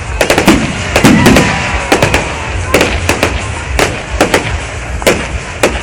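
Fireworks going off: a rapid, irregular string of sharp bangs and crackles over a low rumble, with a steady whistle about a second in.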